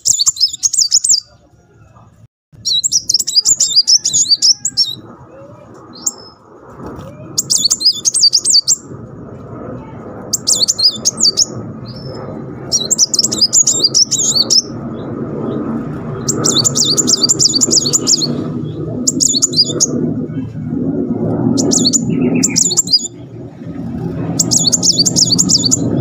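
Sunbird singing rapid, rolling high-pitched trilled phrases, each about a second long, repeated every few seconds. A steady low background noise builds up underneath from a few seconds in.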